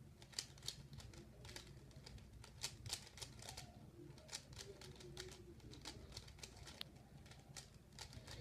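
Rubik's cube being turned quickly during a timed solve: faint, irregular plastic clicks of the layers snapping round, several a second.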